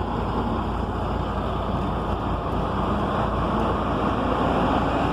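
Isuzu LV150 coach's diesel engine running steadily, a continuous low rumble.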